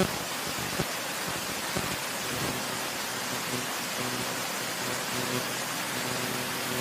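Steady rushing hiss of a small, clear forest stream running over stones, with a couple of footsteps knocking on rocks in the first two seconds.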